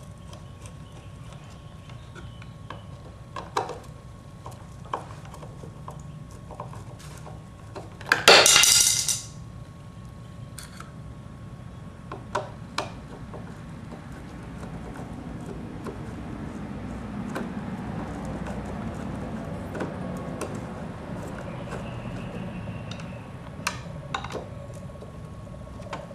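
Scattered small metal clinks and handling noise from hand tools working at a model airplane's engine mount, with one loud burst of noise lasting about a second around eight seconds in.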